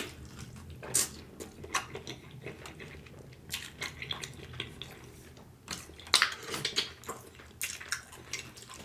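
Close-miked eating of a smoked turkey leg: irregular wet chewing, smacking and clicking mouth sounds, bunched about a second in and again around six to seven seconds.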